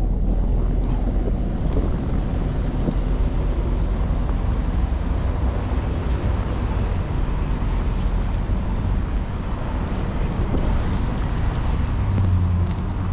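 Steady street traffic rumble with wind buffeting the microphone, and a louder low engine hum near the end.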